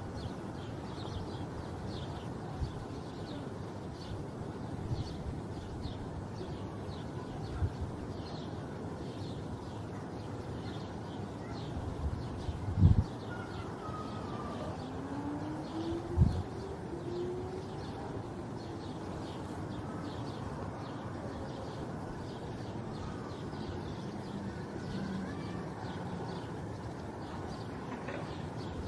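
Small birds chirping repeatedly and a pigeon cooing over a steady background hiss. Two dull thumps come a few seconds apart about halfway through.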